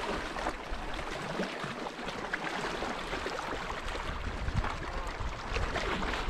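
Small waves lapping and splashing against a rocky shoreline in a steady, crackling wash.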